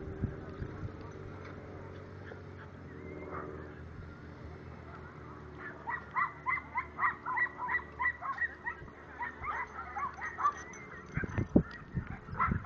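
Dogs barking in a rapid run of short, high yips during play, starting about halfway through and lasting some five seconds. A few sharp thumps come near the end.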